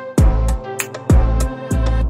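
Background music with a steady beat: deep bass-drum hits and sharp hi-hat ticks over sustained tones.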